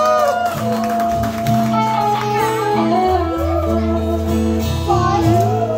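A young girl singing a song through a microphone, accompanied by a strummed acoustic guitar.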